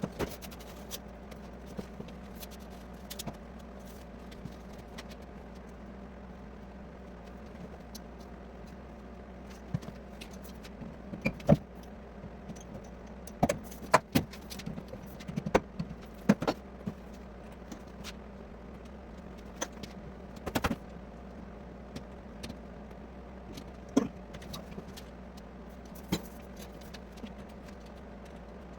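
Steady low hum under scattered sharp clinks and knocks, which come thickest a little before the middle.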